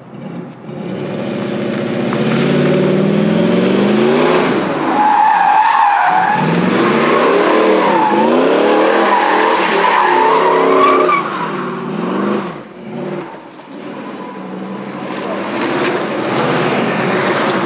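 Chevrolet Monte Carlo SS V8 revving hard through donuts, its pitch rising and falling over and over as the rear tires spin. The tires squeal through the middle stretch. The engine eases off briefly about twelve seconds in, then picks up again.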